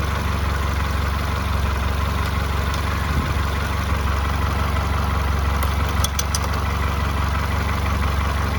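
1996 Honda Accord engine idling steadily after its rebuild, with a cluster of a few short clicks about six seconds in.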